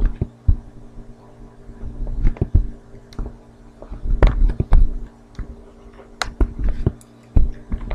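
Stylus tapping and sliding on a pen tablet as points are plotted and a curve is drawn: irregular sharp clicks and knocks. A steady electrical hum runs underneath.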